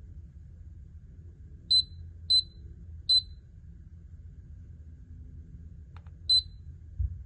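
Control panel of an ENEFT hot water heat pump beeping as its buttons are pressed to set the timer's end time. There are four short high beeps: three in quick succession, then one more about three seconds later, just after a soft click.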